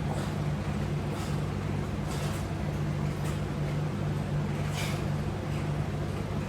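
A steady low hum throughout, with short hissing sounds every second or so.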